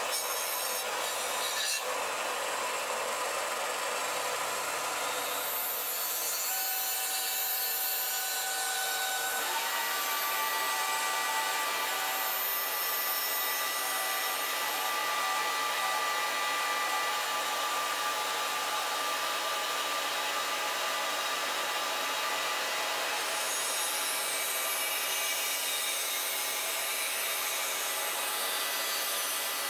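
Milling machine cutter taking a light skimming cut across a sheet of Garolite LE phenolic laminate: a steady rasping hiss of the cutter through the fibrous material. Faint steady whining tones join in about nine seconds in, with a vacuum nozzle held at the cutter drawing up the dust.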